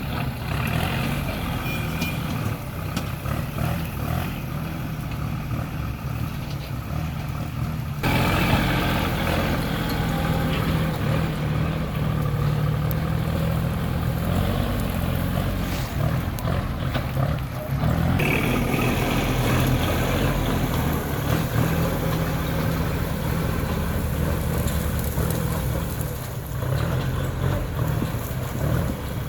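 Heavy earthmoving machinery running, a steady low engine drone. The sound changes abruptly about eight and again about eighteen seconds in.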